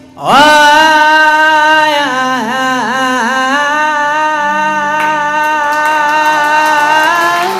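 A solo voice singing one long, drawn-out note in the Iraqi folk style, with wavering melodic turns in the middle. A lower steady tone joins about halfway through.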